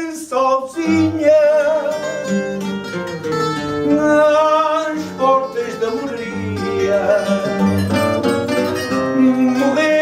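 Portuguese guitar playing a fado melody over a fado viola (classical guitar) accompaniment with plucked low bass notes.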